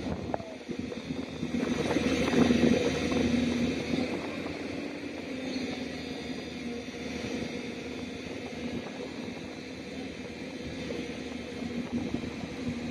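Heavy diesel engines of an excavator and a stuck tipper truck running under load as the excavator bucket pushes the truck through sand. The engine noise swells about two seconds in and eases off again by about four seconds.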